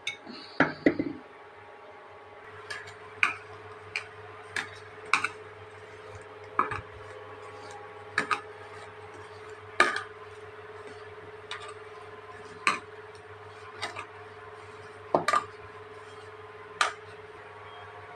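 Stainless steel mixing bowl clinking and knocking as flour, grated tomato and onion are mixed into paratha dough by hand, a sharp clink roughly once a second at an uneven pace, with a brief flurry of knocks just after the start. A steady low hum runs underneath.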